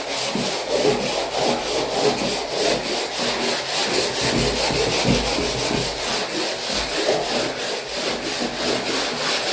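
Coarse sandpaper rubbed on a wall in quick, even back-and-forth strokes, about three to four a second, giving a steady rasping scrape.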